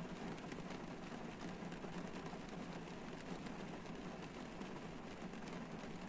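Rain falling on a car's roof and windscreen, heard from inside the cabin: a steady patter of many small drops.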